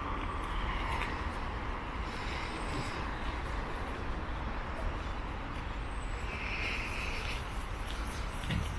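Steady outdoor background rumble, strongest in the low end, with a brief faint higher sound about seven seconds in.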